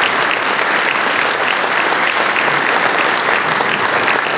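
Audience applauding steadily at the end of a speech.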